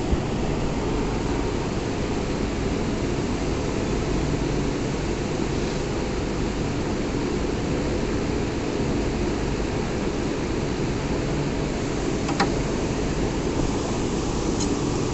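Steady hum and hiss of running machinery, typical of a CNC milling machine at work, with faint steady tones in it and one sharp click about twelve seconds in.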